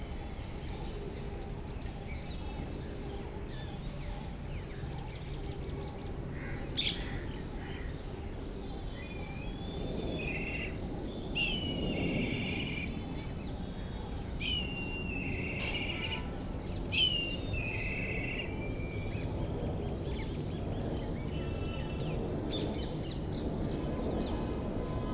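Birds chirping over a steady background hiss, with several louder calls of a sharp falling note followed by a short buzzy trill, the clearest about seven, eleven, fourteen and seventeen seconds in.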